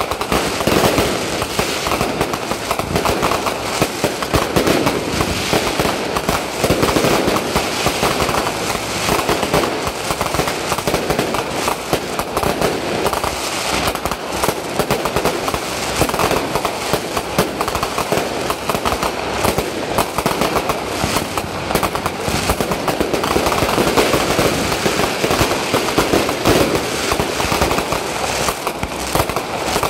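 Fireworks going off in rapid, unbroken succession: a dense, continuous crackle of many sharp bangs with no pauses.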